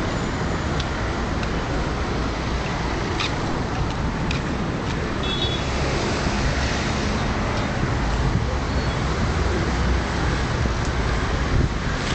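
Steady city traffic noise with wind rumbling on the microphone.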